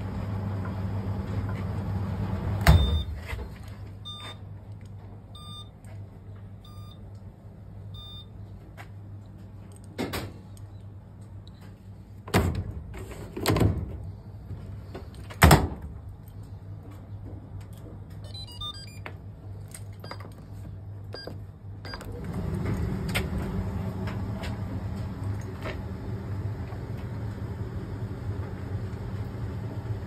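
Fisher & Paykel ED55NZ clothes dryer: the drum motor runs with a steady hum, then stops with a loud clunk about three seconds in. A run of short electronic beeps and several separate clicks and knocks follow, then the motor starts again and the drum runs with a steady hum from about 22 seconds in.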